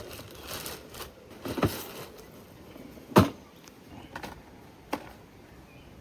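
A few separate knocks and clunks of a portable gas stove being handled and set down on a makeshift table, the loudest about three seconds in.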